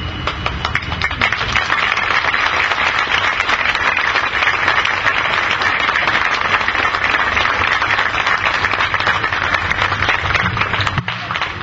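Audience applauding, a dense steady clapping that stops suddenly near the end.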